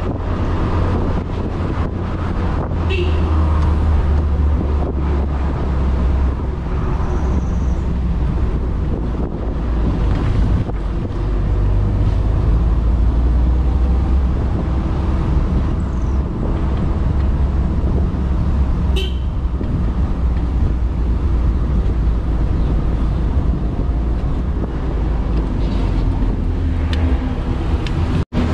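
Continuous wind buffeting and road noise from an open-top Moke being driven, picked up by a camera microphone on a tall pole above the car; the low rumble dominates throughout. A short high-pitched sound stands out a few seconds in and again past the middle, and the sound drops out for an instant just before the end.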